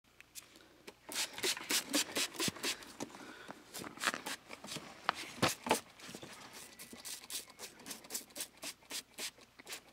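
Trigger spray bottle of cover-scent spray pumped rapidly over camouflage clothing: a long series of short hissing squirts, about three or four a second, starting about a second in, with a few sharper clicks and cloth rustling.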